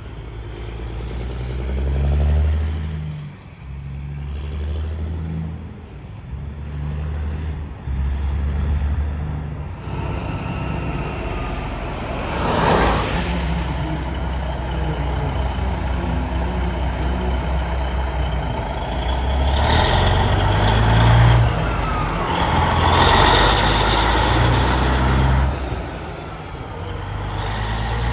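Diesel semi-truck engines pulling away and shifting up through the gears, the low exhaust note dropping and climbing again in steps. A short burst of air hiss comes about twelve seconds in, and a truck gets louder near the end as it accelerates past.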